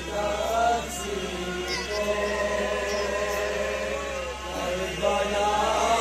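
A man chanting a noha, a Shia lament for Karbala, into a microphone, holding long sliding notes.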